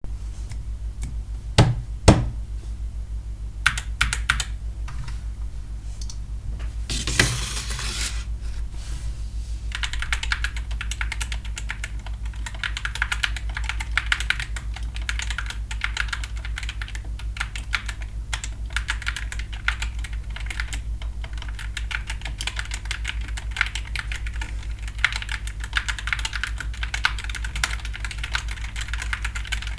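GK61 mechanical keyboard with lubed Gateron Red linear switches being typed on: a few separate keystrokes at first, two of them loud, then continuous fast typing from about ten seconds in. A brief rustle comes about seven seconds in, and a steady low hum runs underneath.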